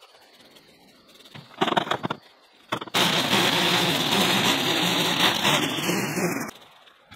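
A small engine-driven garden power tool running loudly and steadily for about three and a half seconds, then cutting off suddenly, after a short louder burst about a second and a half in.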